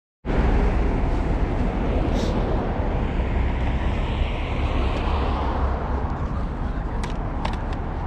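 Road traffic noise from cars on a city road, with one car passing about four to five seconds in. A few short clicks sound near the end.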